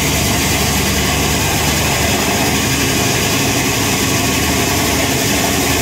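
Sawmill running steadily while its blade saws through an ash log on the carriage.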